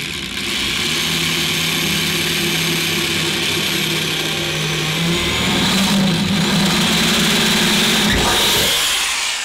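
Handheld power drill running steadily as a 10 mm bit bores upward through a roof sheet. The motor pitch steps up a little about halfway through, and it winds down near the end.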